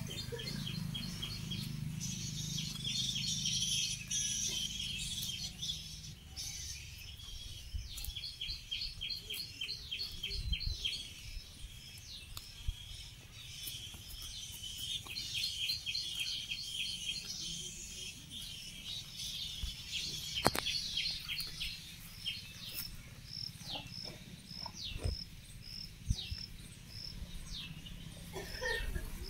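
Birds and insects chirping outdoors, in short trains of rapid chirps. Toward the end an insect keeps up an even pulse about twice a second.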